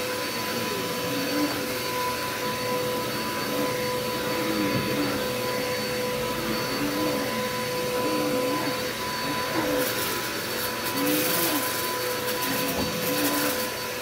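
Upright bagless vacuum cleaner running on carpet: a steady motor whine over a hiss of suction, wavering a little as it is pushed back and forth, with spells of stronger hiss near the end.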